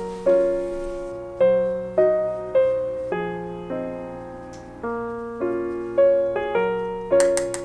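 Background music: a soft piano playing gentle chords, each one struck and fading away before the next, about one to two chords a second.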